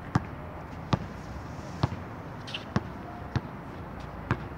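A basketball being dribbled on a hard outdoor court: six sharp bounces, roughly one a second.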